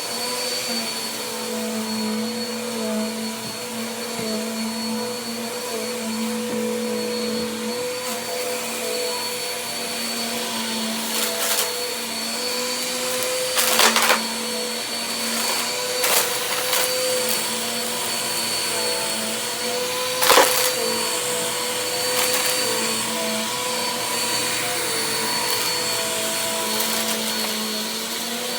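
Vacuum cleaner running steadily with an even motor whine, broken by a few short, sharp rattles, the loudest about halfway through and again about two-thirds of the way in.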